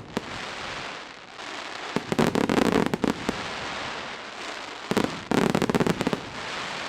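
Fireworks display: two volleys of rapid crackling bangs, each lasting about a second, one about two seconds in and another about five seconds in, with a steady hiss between them.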